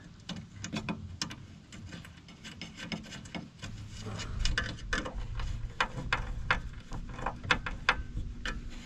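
Small metal parts being fitted by hand: irregular light clicks and scrapes of a screwdriver, a nut, washers and a bolt against a lawn mower's metal rear guard.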